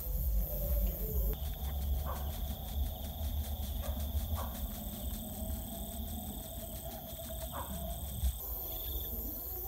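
Night insects, crickets among them, calling steadily in fast high pulses and a thin high tone, over a low rumble; the insect calls stop abruptly near the end.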